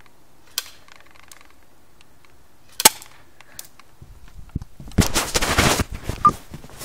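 Airsoft pistol firing: a faint click, then one sharp loud shot about three seconds in. About five seconds in comes a second of loud scraping and rustling as the phone rubs against a jeans pocket.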